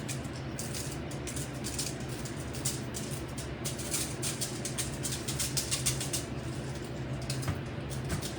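Pink Himalayan salt being dispensed over raw chicken: a run of rapid, irregular dry clicks and rattles, over a steady low hum.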